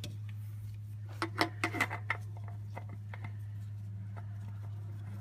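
A steady low hum, with a quick cluster of light clicks and taps about a second in and a few fainter ticks after.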